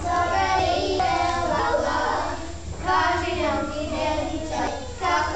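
Children singing a song, with held, gliding notes and short breaks between phrases.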